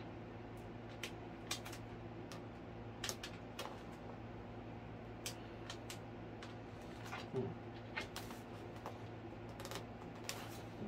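Irregular light clicks and taps, a few a second, from hands working the wing of a foam EDF model jet onto its fuselage. A steady low hum runs underneath.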